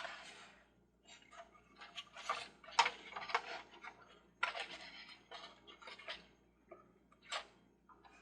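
Irregular clicks, taps and scrapes of small hard parts being handled as the toy carousel is worked on, loudest in the middle with one sharp click near the end.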